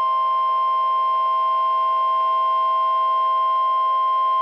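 Emergency Alert System attention tone: a steady, loud electronic tone with a weaker, lower tone beneath it, held without a break. It signals the start of a new severe-weather warning broadcast.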